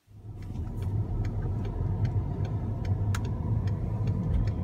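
Car driving along, heard from inside the cabin: a steady low rumble of engine and road noise, with light clicks scattered through it.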